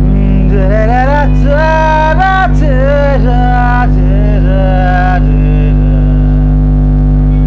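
A man singing an Assamese song, with held, wavering notes over steady low backing music. The voice stops about five seconds in, leaving the backing music.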